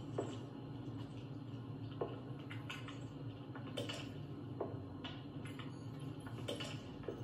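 Quiet room tone with a low steady hum and scattered soft clicks at irregular intervals, about one every half second to a second.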